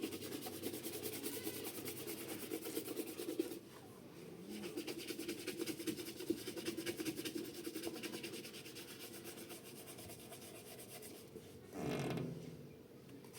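Rapid, repeated rubbing or scraping strokes that pause briefly about three and a half seconds in, then carry on and fade, with a short louder low sound near the end.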